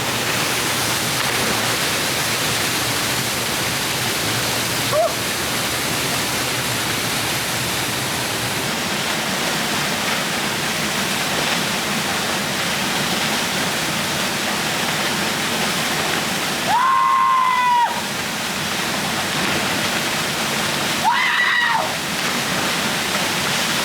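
Waterfall rushing steadily, an even hiss of falling water. Two short, high-pitched calls cut through it about three-quarters of the way in.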